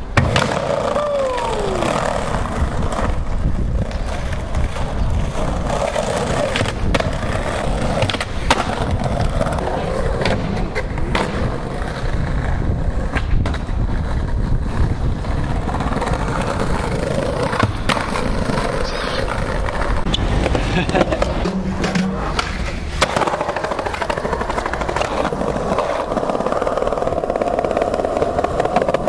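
Skateboard wheels rolling on paving with a steady rumble, broken by sharp clacks and slaps of boards hitting the ground.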